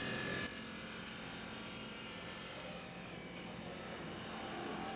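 Wood lathe spinning an ash bat blank while a turner's hand chisel shapes its rounded end. The sound is louder for the first half second, then settles to a steady mechanical hum.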